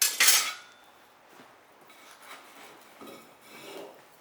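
A short, loud burst of metallic rattling at the start, then faint scattered clinks.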